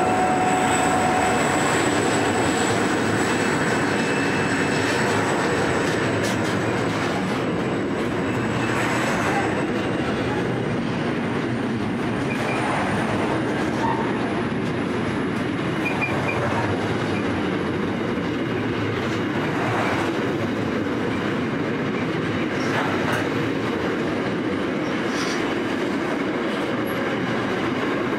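Loaded container flat wagons of a long freight train rolling past steadily, their wheels and bogies making a continuous rumble on the rails. A faint high wheel squeal rises slowly partway through.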